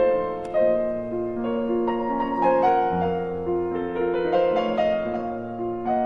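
Background piano music, a gentle melody with notes changing about every half second.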